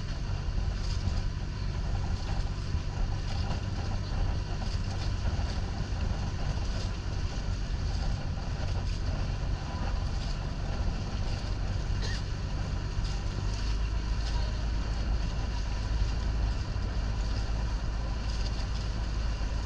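Engine of an outrigger bangka running steadily while the boat is under way: a low drone over a steady rushing hiss. The low rumble gets heavier about two-thirds of the way through.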